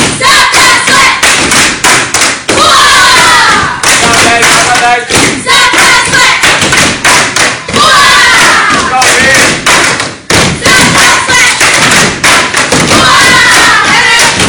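A step team stepping: rapid, loud rhythmic stomps and slaps on a hard gym floor, with shouted chants coming in and out over the beat several times.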